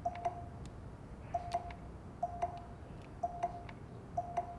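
TV remote pressed repeatedly to flip channels: five short beeps about a second apart, each with a pair of light clicks, over a faint steady hum.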